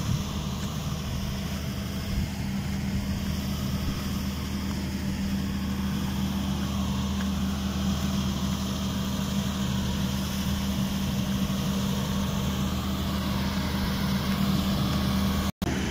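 A steady low hum like an idling engine, with a broad steady rushing noise over it that fits floodwater running along a channel. The sound drops out for an instant near the end.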